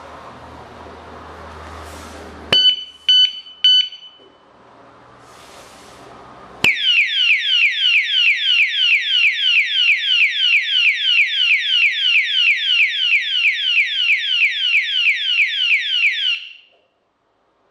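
Alarm padlock's built-in siren, rated at 110 dB: three short high beeps, then a few seconds later a loud siren of rapid falling sweeps, about three a second, that runs for about ten seconds and then stops.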